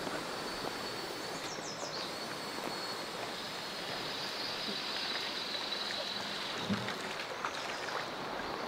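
Steady rushing of a shallow, rocky river, with a faint steady high-pitched whine above it.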